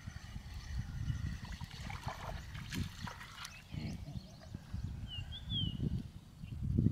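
Small tilapia splashing at the pond's surface as it is reeled in and swung out of the water, over a low rumble. A bird chirps a few times about five seconds in.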